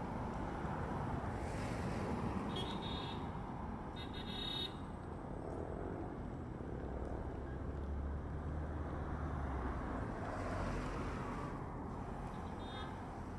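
Distant jet engine noise from a United Boeing 737 slowing down the runway after landing: a steady rushing rumble. A few short high beeps sound about two and a half seconds in, at about four seconds, and again near the end.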